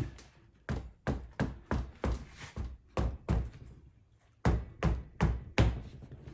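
Quick hammer taps, about a dozen blows in two runs with a short pause between, roughly three a second.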